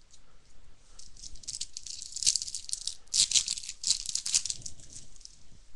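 Dense, crackling rustle of baseball card packs and cards being handled, loudest in two spells in the middle.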